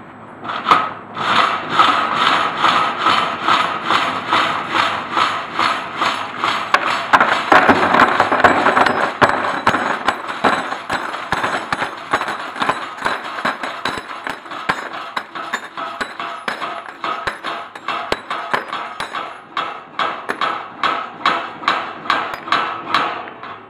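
Homemade scrap shaker running: a sheet-steel trough jolting back and forth, with loose metal scrap clattering in it. It makes a rhythmic metallic knocking about three times a second, starting about half a second in and stopping just before the end.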